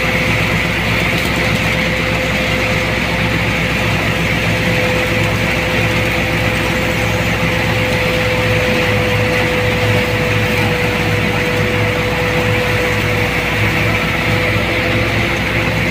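Crop thresher running steadily, its machinery giving a constant even hum with a whirring haze over it and no change in pace.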